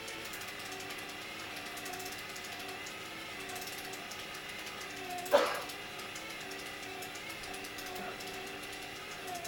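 Train destination roll sign from a 211 series electric train, its drive motor humming and wavering in pitch as the printed film winds from one destination to the next. A single sharp clack a little over five seconds in.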